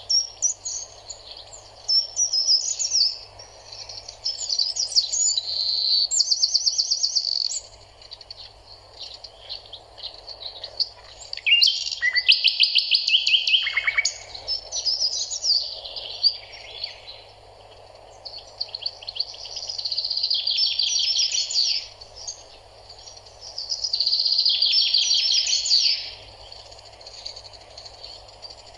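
Small songbirds singing: repeated phrases of quick high chirps and rapid trills, each lasting one to two seconds with short pauses between, over a faint steady hiss.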